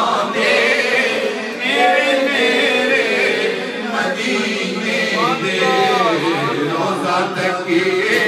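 A man singing a naat, an Islamic devotional song, unaccompanied into a microphone, in long melodic phrases with wavering, ornamented pitch.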